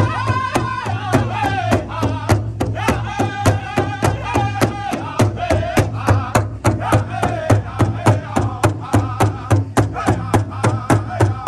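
Powwow drum group: several men singing together in high voices around one large hide drum, struck in unison with drumsticks in a steady beat of about four strokes a second. The sung melody steps down in pitch over the phrases.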